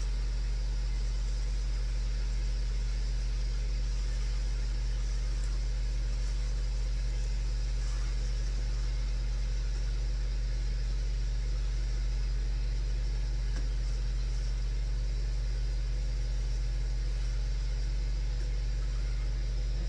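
Ninja countertop grill running, giving a steady low hum from its fan.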